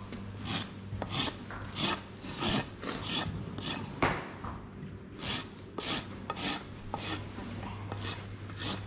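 Steel hoof rasp filing across the bottom of a pony's hoof, in even back-and-forth strokes about one and a half a second, with a short pause after a sharp click about four seconds in. The rasp is taking down a heel that is high, to level the hoof.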